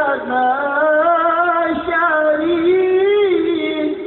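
A male qari's voice in melodic Quran recitation (tilawah), drawing out the end of "al-'alamin" in one long, ornamented sung line whose pitch rises and falls in slow waves.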